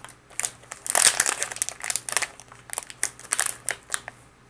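Clear plastic packaging bag crinkling in the hands in irregular bursts as it is handled and pulled at, dying away shortly before the end.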